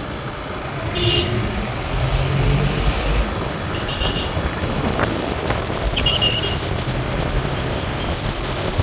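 Road and traffic noise heard from a moving vehicle on a city street: a steady low rumble with wind and passing cars. Short high-pitched chirps come through about a second in, again around four seconds and around six seconds.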